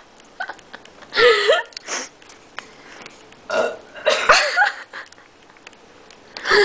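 A woman burping loudly several times in a row, with short pauses between the burps; the longest come about a second in and about four seconds in.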